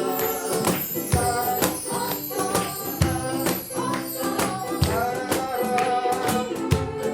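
Live ukulele ensemble music: repeated strumming with a held melody line over it.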